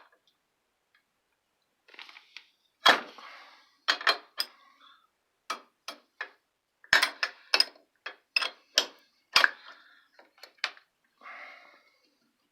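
Irregular sharp metal clicks and taps, starting about two seconds in: a wrench working a threaded fitting on a shower valve as it is tightened.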